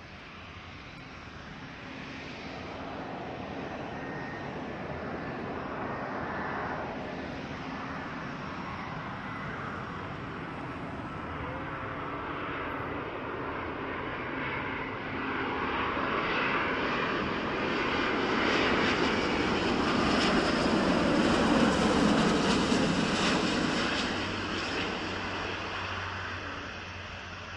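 Airliner's engines passing close by: a steady engine noise that builds up, is loudest about three-quarters of the way through, then fades away.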